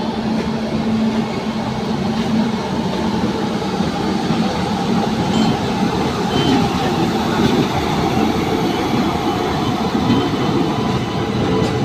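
Steady rumbling running noise of a train moving along the tracks.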